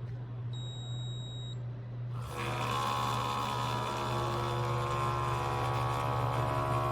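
A single electronic beep lasting about a second, then about two seconds in the Outin Nano portable espresso machine's small electric pump starts and runs steadily, pushing water through the coffee, over a constant low hum.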